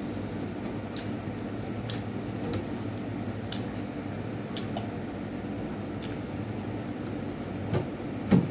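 Eating sounds: chewing with sparse small clicks over a steady background hum, and a louder knock near the end.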